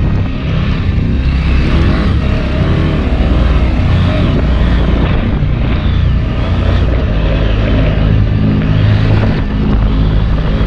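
Stock KTM 790 Adventure S parallel-twin engine pulling and revving as the bike is ridden over a sandy motocross track, the revs rising and falling, with wind rush.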